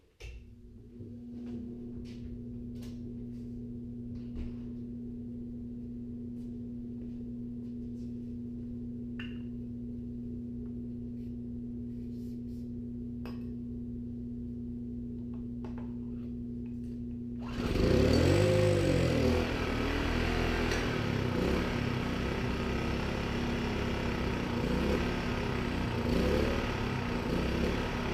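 Ventilation fan running with a steady hum and a few light clicks. About two-thirds of the way in, the small engine of a Yardworks 1000 W portable generator starts, its pitch sweeping up and down, then runs unevenly on ether starting fluid sprayed into the carburetor while yellowed stale fuel is pumped through.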